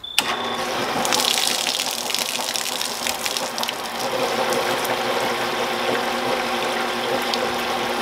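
An old Sedcon garage door opener motor switches on and drives a belt-driven wet grindstone, running with a steady hum. Water sprays and splashes throughout because the stone is spinning too fast and throws the water out of its trough.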